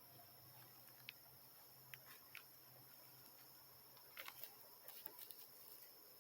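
Faint rural evening ambience: a steady high insect drone, a low hum of distant harvest machinery, and scattered short chirps and ticks, most of them about four to five seconds in.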